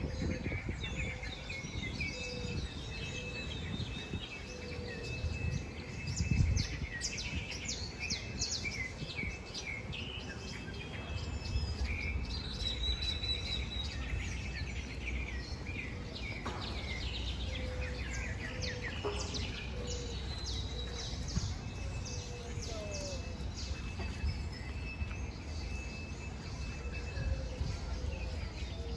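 Many small birds chirping and trilling in the park trees, over a steady low rumble of city traffic. A brief low thump about six seconds in is the loudest moment.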